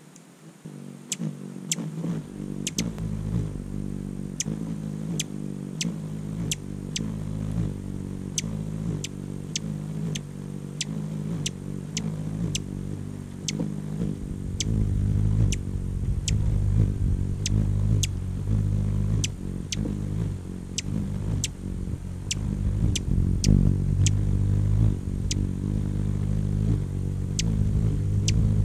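Hummingbird wings humming as the birds hover at a feeder close to the microphone: a low buzz that grows louder about halfway through. Sharp chip notes come roughly once a second.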